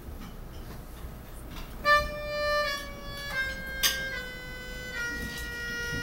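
Melodica playing slow, long held notes that step down in pitch, starting about two seconds in. A sharp click about four seconds in.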